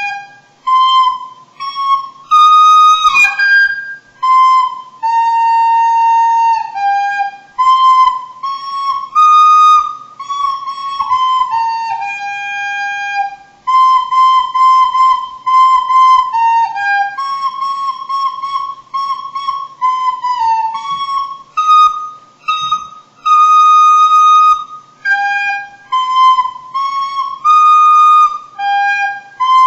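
A recorder playing a simple tune one note at a time, with short breaks between phrases; a beginner's playing. A brief knock about three seconds in.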